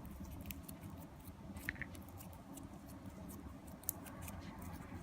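Faint scattered small clicks and sticky handling noises of freshly activated glitter-glue slime being stirred and worked.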